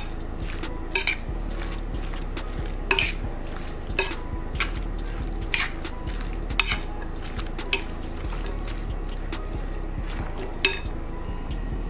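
A metal spoon stirring a wet chopped shrimp-and-crab ceviche in a glass mixing bowl. The spoon clinks sharply and irregularly against the glass about ten times, over the soft squelch of the mix.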